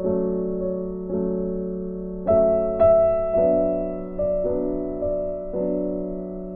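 Slow, gentle piano music: notes and chords struck about once a second, each ringing and fading away.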